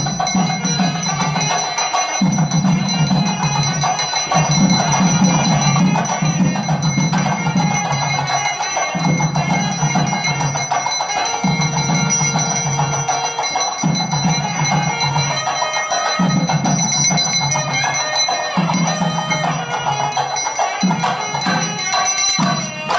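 Temple bells ringing continuously over music with a low beat that repeats about every two seconds, accompanying the aarti flame offering.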